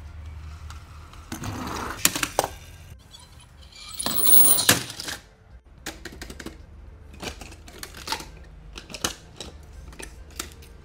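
Die-cast toy cars clicking and clinking against each other as a hand handles and rummages through a pile of them, with a louder rustling burst about four seconds in.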